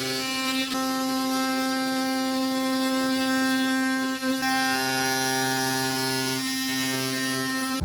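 Background music of sustained, held chords that change every second or few seconds, ending with an abrupt cut.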